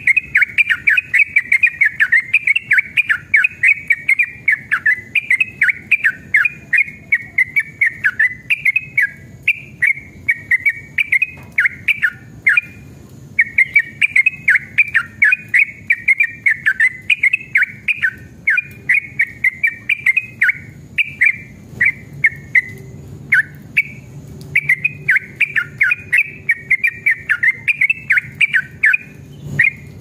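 Yellow-vented bulbul singing a long, fast run of chirping, rolling notes, many per second, pausing briefly about twelve seconds in and breaking up a little more in the second half.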